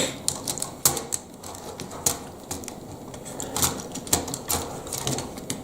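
Plastic Lego Technic pieces being handled and fitted together: irregular sharp clicks and light rattles, a few each second.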